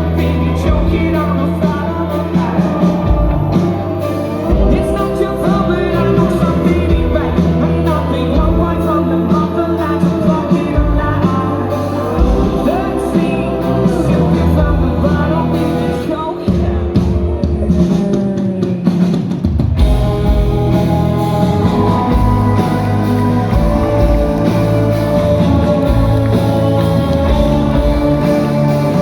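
Rock band playing live, with singing over guitars and drums.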